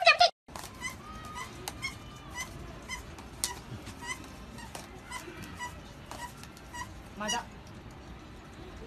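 Otter giving short, high chirps over and over while being hand-fed, with a louder rising squeal about seven seconds in and faint clicks alongside. It opens with a brief loud sound that cuts off abruptly.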